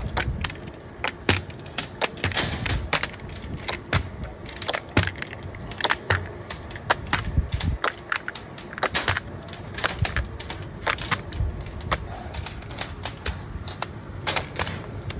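Rapid, irregular clicking and clacking of small hard objects knocking together, several sharp clicks a second at uneven spacing, over a low rumble of factory noise.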